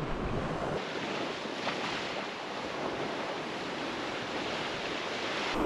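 Ocean surf washing onto a beach, a steady hiss of breaking waves, with wind rumbling on the microphone for the first second.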